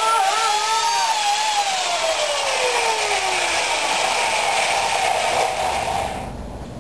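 Chainsaw running steadily, dying away near the end. Over it a man screams with a wavering voice that slides down in pitch and stops about halfway through.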